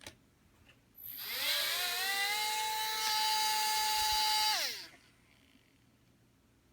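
A click, then a small electric motor spinning up with a rising whine, running steady for about three seconds, and winding down. Its owner questions whether the motor is bad.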